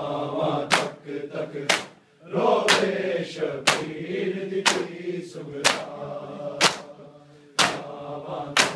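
Men chanting a noha lament in unison, with hand slaps on bare chests (matam) landing in a steady beat about once a second. The slaps are the sharpest, loudest sounds over the voices, and the chant pauses briefly about two seconds in.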